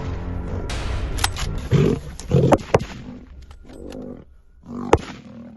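Lion growling in short low bursts about two seconds in, over background music. A sharp crack, likely a rifle shot, comes near the end.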